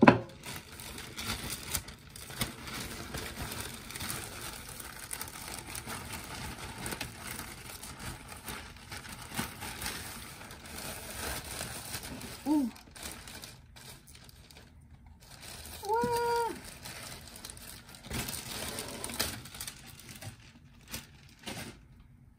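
Thin biodegradable plastic produce bag crinkling and rustling as bunches of spinach and young napa cabbage are pulled out of it and laid in a wooden bowl. A brief vocal sound is heard twice, about twelve and sixteen seconds in.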